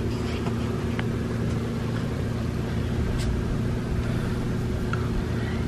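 Steady low machine hum holding several constant pitches, with a few faint ticks.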